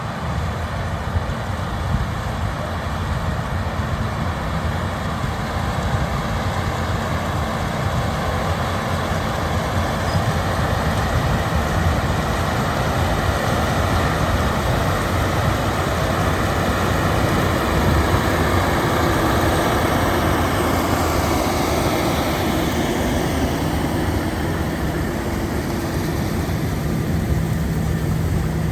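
Large diesel harvest machinery running steadily with a heavy low drone and mechanical clatter. A faint whine falls in pitch about two-thirds of the way through.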